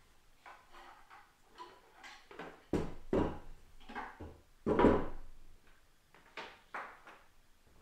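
A series of irregular knocks and clunks, like objects being handled and set down, the loudest a few heavy thuds about three and five seconds in.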